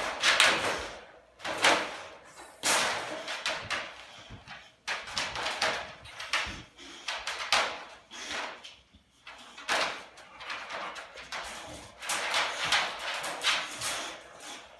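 Metal wire dog crate rattling and its plastic floor pan scraping and sliding in irregular bursts as a boxer noses and paws at the bottom of the crate.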